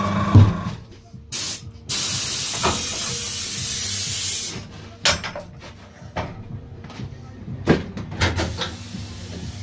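A tyre changer's hum stops with a knock about half a second in. Its pneumatics then let out compressed air, first in a short burst of hiss and then in a loud hiss of about two and a half seconds. Scattered metal clicks and knocks follow.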